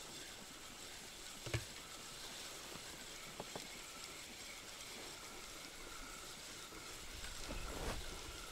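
Faint water sounds around a small boat on a shallow river, with one sharp knock about a second and a half in, two light clicks a couple of seconds later, and a low rumble near the end.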